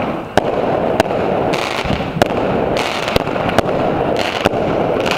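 Fireworks going off: a continuous dense crackle with a string of sharp bangs about every half-second to second, and short spells of high hiss several times in between.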